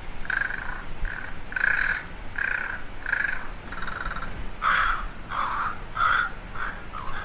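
A bird calling over and over: about a dozen short calls, roughly one every two-thirds of a second, becoming shorter and quicker near the end.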